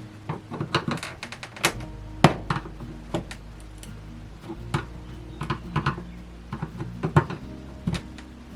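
Scattered knocks and clicks of a kitchen faucet and its fittings being handled and worked on at a camper sink, over steady background music.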